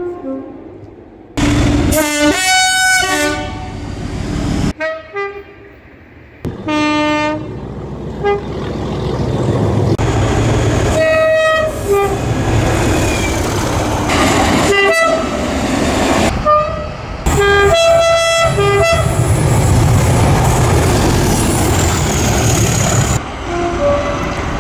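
Class 37 diesel locomotives sounding their two-tone horns in a series of long and short blasts, with the low rumble of a locomotive and train passing close by through the second half.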